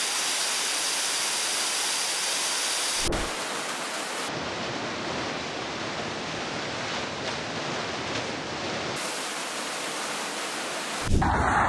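Rushing whitewater of river rapids: a steady noise of churning, frothing water, changing abruptly in character about three seconds in.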